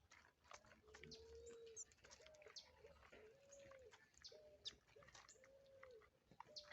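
A dove cooing faintly in a steady repeated series, a short hooked note followed by a longer arched coo, roughly once a second from about a second in. Small birds chirp faintly and irregularly over it.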